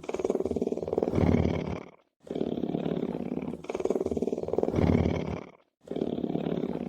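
Lion purring: a low, rapidly pulsing rumble in long breaths, each swelling louder toward its end, with short breaks about two seconds and five and a half seconds in. The same breath pattern repeats each time.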